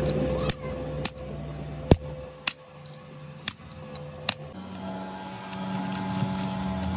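Sharp metal-on-metal taps: a hammer striking a steel drift held against the shaft nut of a truck differential's helical pinion gear assembly, six irregularly spaced strikes, the third the loudest. A steady low hum begins about four and a half seconds in.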